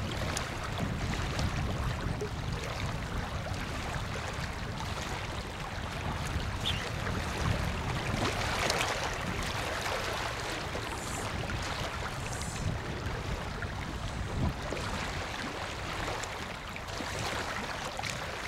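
Wind rumbling on the microphone over small wind-driven waves lapping against a rocky lake shore: a steady rushing with a few faint ticks and splashes.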